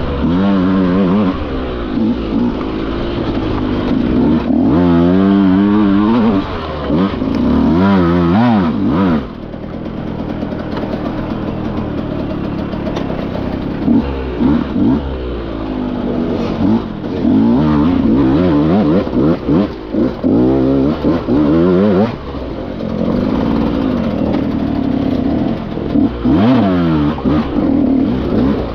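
Dirt bike engine revving hard in repeated throttle bursts, its pitch climbing and falling with each one. Between about halfway and three-quarters of the way through, the throttle is chopped and reopened many times in quick succession.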